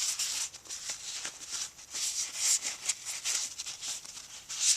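Rag rubbing and wiping over a metal part being cleaned: a run of short, irregular scratchy strokes.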